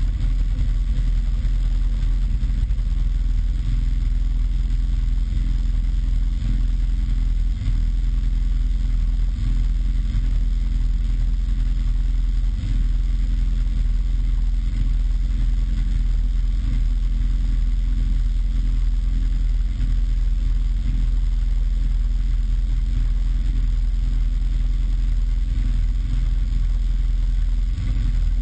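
Snowmobile engine running steadily, a constant low drone that holds the same speed throughout.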